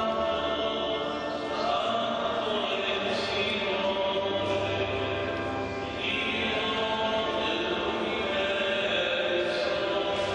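Liturgical chanting at an Italian Mass: slow, long-held sung notes ringing on in the echo of a large stone church.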